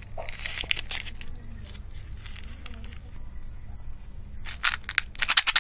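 Foil candy wrapper crinkling as it is handled, then a louder run of quick, sharp crinkling clicks about four and a half seconds in, over a steady low hum.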